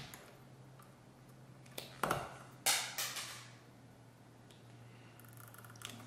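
Wire stripper/cutter snipping through the copper conductors of house wiring: a few sharp clicks a couple of seconds in, one trailing off in a short hiss, with a lighter click near the end, over a faint steady low hum.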